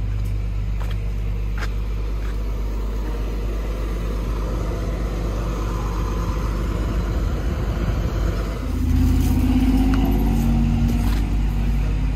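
Flatbed tow truck's engine running steadily at idle. About eight and a half seconds in it gets louder and higher in pitch, the engine speeded up to drive the bed's hydraulics and winch while a car is rolled off the bed.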